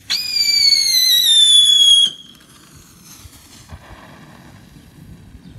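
Chariot of Fire consumer novelty firework whistling: a loud, high whistle that starts suddenly, slides slowly down in pitch for about two seconds and cuts off, leaving a faint hiss.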